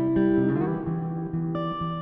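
Background music of plucked notes, with one note gliding upward about half a second in.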